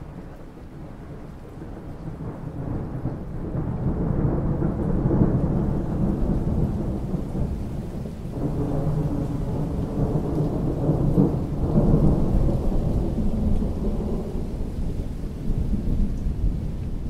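Long rolling rumble of thunder over rain falling on a pool's surface. The rumble builds over the first few seconds, then swells twice, about a third of the way in and again past the middle.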